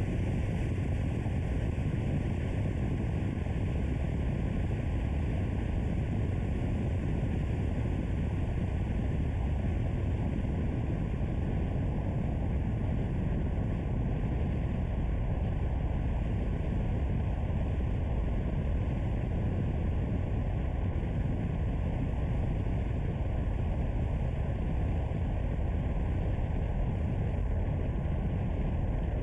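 Steady low rumble of a car being driven along a road: engine and tyre noise with no change in level.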